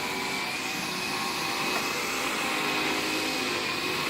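Bissell AirRam cordless stick vacuum cleaner running steadily on carpet: the rush of its suction with a steady high whine from the motor.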